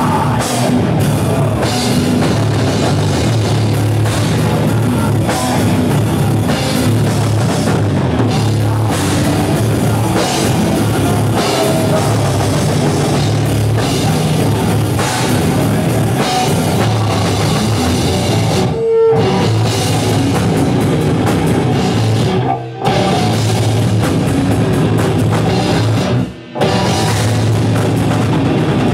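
Live heavy metal band playing loud, with distorted guitars and a pounding drum kit, broken by a few short stops about two-thirds of the way in and again near the end.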